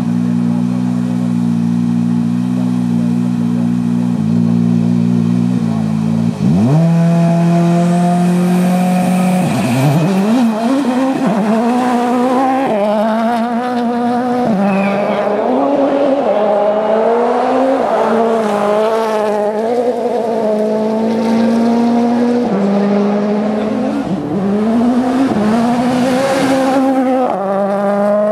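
2011 World Rally Car's 1.6-litre turbocharged four-cylinder engine holding a steady note for about six seconds, then revving up sharply and pulling away hard, its pitch climbing and dropping again and again through the gear changes.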